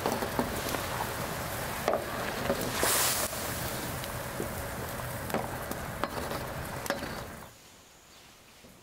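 Wood fire crackling under a large metal pan of persimmon slices boiling hard and being stirred, a steady hiss dotted with crackles. The sound drops away sharply near the end.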